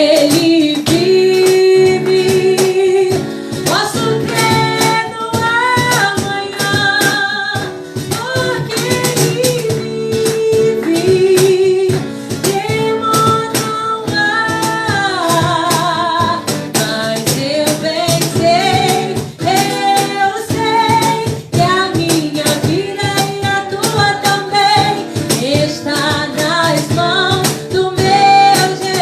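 A woman singing a Christian worship song, accompanied by a strummed guitar.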